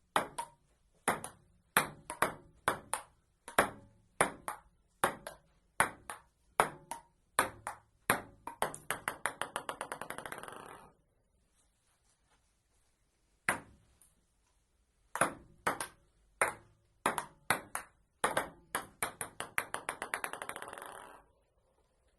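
Table tennis rally: a celluloid ping-pong ball clicking off bats and table about twice a second. Twice the rally ends and the ball is left bouncing, its bounces quickening and dying away to rest.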